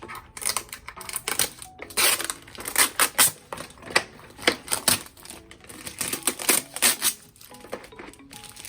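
Hard parts of a small flat-pack shelf clinking and clattering as they are handled and unpacked: a quick, irregular series of knocks and rattles. Faint background music runs underneath.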